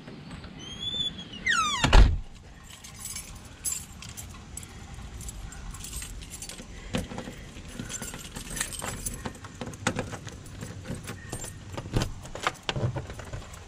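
A glass-paned house door squeaks and shuts with a thud about two seconds in, then a set of keys jangles with many small clicks at the door, as when locking it.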